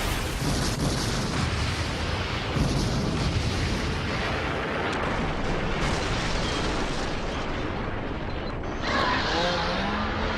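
Tornado wind blowing hard over the microphone, a steady dense rush with a heavy low rumble. From about nine seconds in the sound shifts and a few short rising pitched sounds come through.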